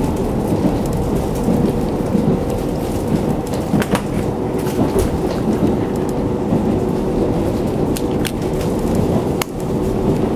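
KiHa 40 diesel railcar under way, heard from inside the car: a steady low rumble of the engine and wheels on the rail with a faint steady hum, broken by a few sharp clicks about four seconds in and twice near the end.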